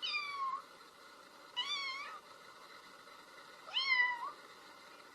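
Domestic cat meowing three times, each a short call of about half a second, roughly two seconds apart.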